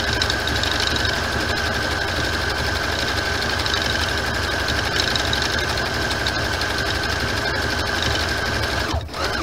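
Electric sewing machine running steadily as it stitches around a fabric appliqué. It stops near the end.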